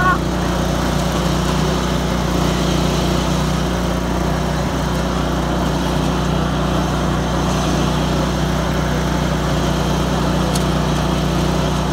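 Riding lawn mower's engine running steadily at an even speed while the mower is driven along.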